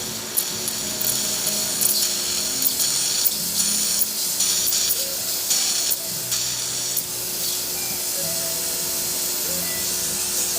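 Steam blowing from a vintage Atomic espresso machine's steam wand: a strong hiss that spits and sputters in bursts for the first several seconds, then settles into a steadier hiss.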